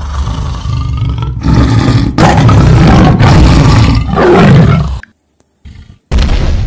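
Tiger roar sound effects, several loud roars in a row, cutting off suddenly about five seconds in. After a brief gap, another loud sound begins near the end.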